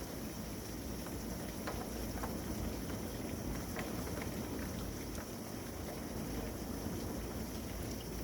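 Storm wind blowing hard in a steady rush, with a low rumble of gusts hitting the microphone and a few faint ticks.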